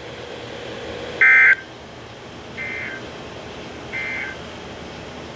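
NOAA Weather Radio SAME end-of-message signal: three short bursts of warbling two-tone digital data, about a second and a half apart, marking the end of the alert. The first burst is much louder than the other two, and a steady radio hiss runs between them.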